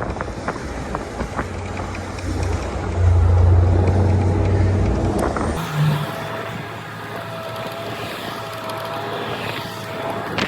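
Heavy tow truck's diesel engine running, pulling harder and louder for a couple of seconds about three seconds in. The sound changes abruptly about halfway to a steadier, higher mechanical whine with little low rumble.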